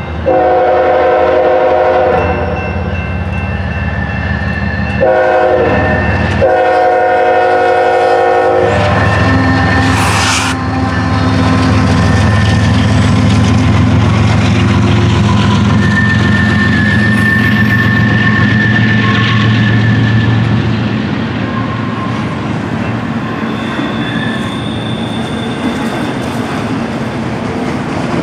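Norfolk Southern diesel freight locomotive's air horn blowing three blasts, a grade-crossing warning, the last ending as the locomotive reaches the crossing. Then the locomotive's diesel engine rumbles past, followed by freight cars rolling by with the clickety-clack of wheels over rail joints.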